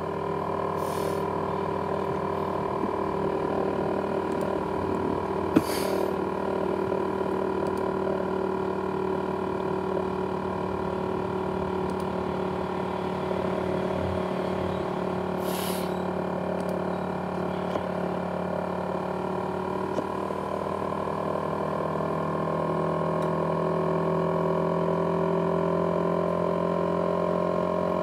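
ASUS X543UA laptop's cooling fan running loud with a steady whine of several held tones. The whine creeps up in pitch over the last few seconds. This is the jet-engine noise of a laptop that has broken down. A single sharp click comes about five and a half seconds in.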